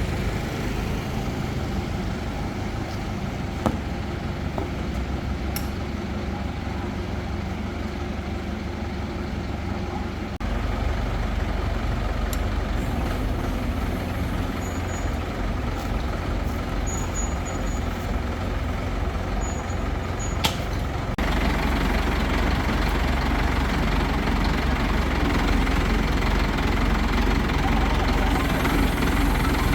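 A crane's engine running steadily, with a sudden step up in loudness about a third of the way in and again about two thirds in.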